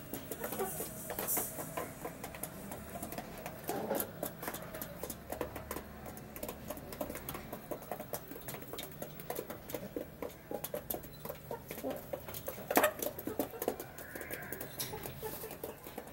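Half-grown chickens pecking feed from a bowl and the ground: rapid, irregular beak taps and clicks, with one sharper knock about three-quarters of the way through.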